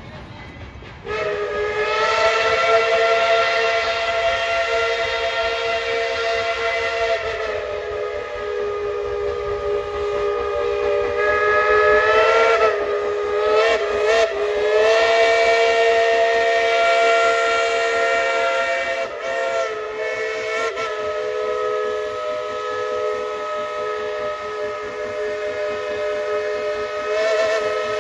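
Steam whistle of ET&WNC No. 12, a 4-6-0 steam locomotive, blowing a long chord of several notes, starting about a second in. The blast is held almost the whole time, with short wavers and breaks about halfway through.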